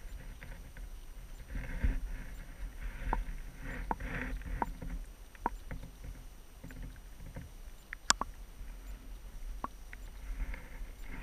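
Underwater recording: a muffled low rumble of moving water with a few soft rushing swells and scattered sharp clicks, the loudest click about eight seconds in.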